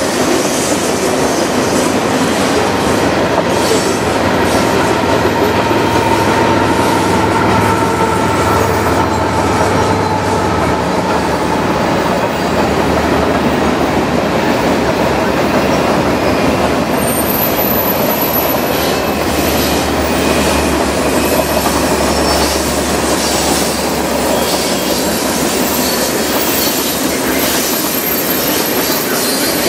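Freight cars of a long Canadian Pacific train rolling steadily past at close range: a continuous rumble of steel wheels on rail with clicking over the rail joints. Thin wheel squeal comes and goes, with a high squeal about two-thirds of the way through.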